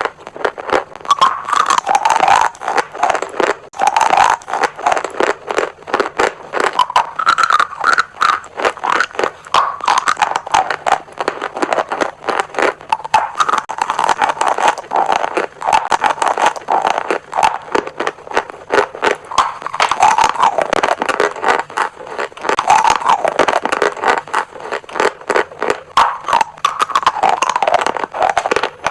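Chalk being crunched and crumbled, a dense, irregular run of crisp cracks and scrapes that keeps on without a break.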